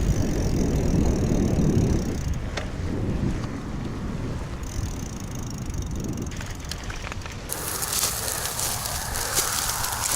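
Forward Next bicycle being ridden: steady low rolling rumble with wind on the microphone. About seven and a half seconds in, a brighter hiss with fine crackling sets in.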